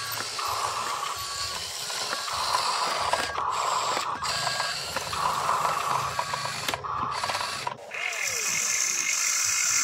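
Electric drive motor and gearbox of an RC dump truck whining in stop-start spurts as it drives over dirt. After a cut near the end, a steadier, higher-pitched whine takes over.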